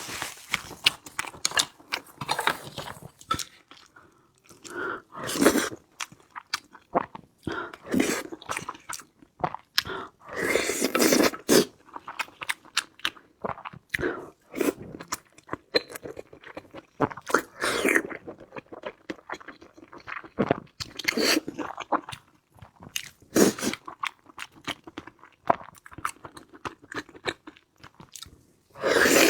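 A person chewing and crunching food close to the microphone, with irregular bites and bursts of crunchy chewing separated by short pauses.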